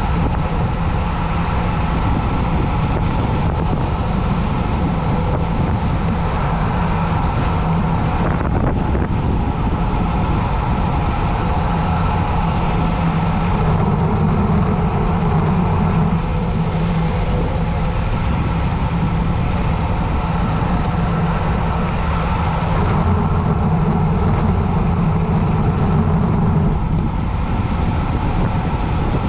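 Steady, loud rush of wind buffeting the microphone, with tyre hum on asphalt, from a bicycle descending a mountain road at speed.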